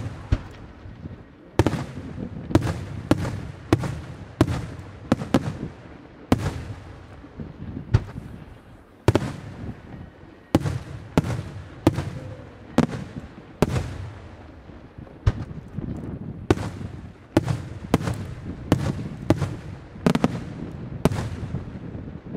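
Aerial firework shells bursting in quick succession, sharp bangs about one a second, each with an echo trailing off over a continuous low rumble.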